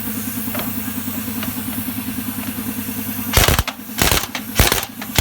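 A 1-inch pneumatic impact wrench firing in about four short, loud bursts in the second half, over a steady, rhythmic engine hum.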